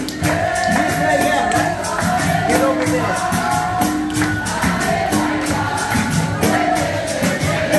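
Capoeira roda music: a group of voices singing together over berimbau and pandeiro, keeping a steady beat.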